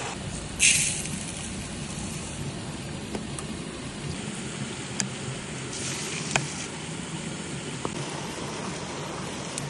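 Steady rush of running river water, with a short loud hiss just under a second in and a few sharp clicks later on.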